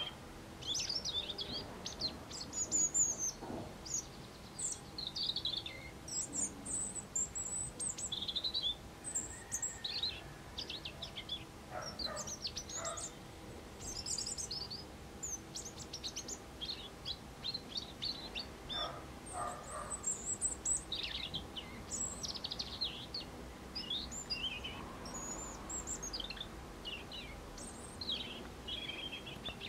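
European robin singing: phrases of thin, high, warbling notes with short pauses between them.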